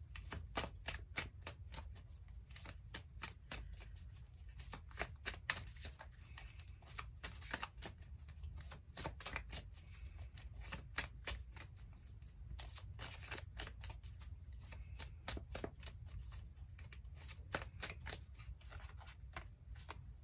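Tarot deck being shuffled by hand off-camera: a fast, uneven run of soft card clicks, several a second, with a low steady hum underneath.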